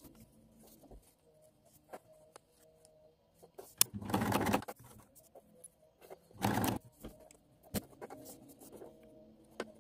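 Domestic sewing machine stitching a zipper seam in two short runs, the first about four seconds in lasting under a second, the second about six and a half seconds in and shorter, with quiet stretches and a few sharp clicks between them.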